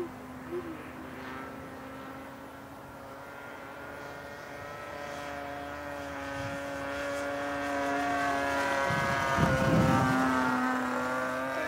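The Super Tigre 90 two-stroke glow engine of a fast RC airplane buzzing in flight, growing louder as the plane comes closer and at its loudest about nine and a half seconds in.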